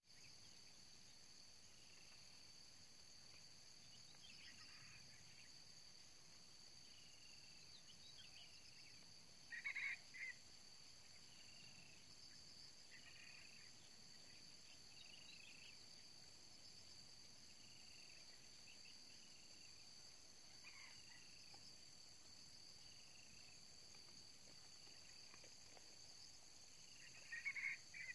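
Faint, steady high-pitched drone of insects such as crickets, with small birds chirping every second or two. Twice, about ten seconds in and near the end, a short louder bird call stands out.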